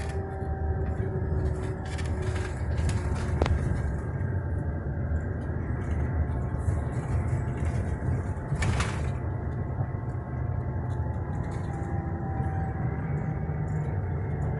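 Steady low rumble of a road vehicle driving, heard from inside its cabin, with a brief hiss about nine seconds in.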